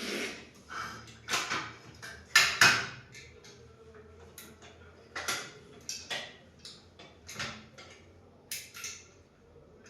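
Irregular metal clanks and knocks as the parts of a washing machine stand and tools are handled and fitted, the loudest two coming close together a little over two seconds in.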